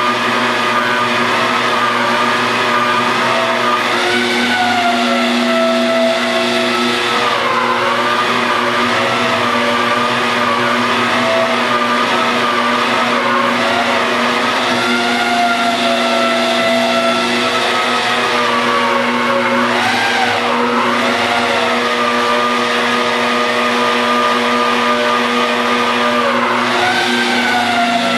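Magnetic drill boring a bolt hole through the steel of a tractor bucket. The motor runs steadily, with a higher whine that sags and rises in pitch as the cutter bites.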